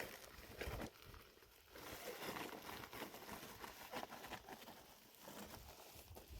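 Faint rustling with scattered light clicks and taps.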